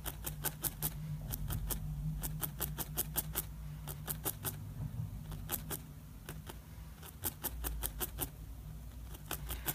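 Barbed felting needle stabbing repeatedly through wool, a quick tick with each stab. The stabs come about six a second, in runs broken by short pauses.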